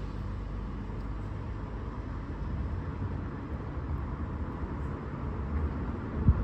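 Steady low background rumble with a faint even hiss, like a running engine or traffic, with one short sharp tap near the end.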